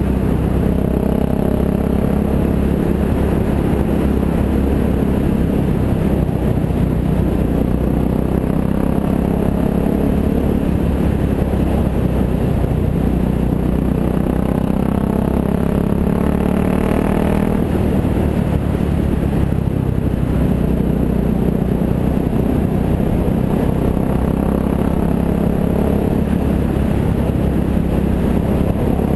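KTM motorcycle engine running under way, mixed with steady wind rush on the camera microphone; the engine pitch rises and falls a few times with the throttle.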